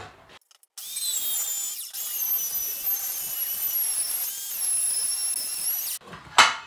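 Compact handheld circular saw ripping a clamped wooden board lengthwise for French cleats, a steady high whine under load for about five seconds that stops suddenly. A short sharp knock follows near the end.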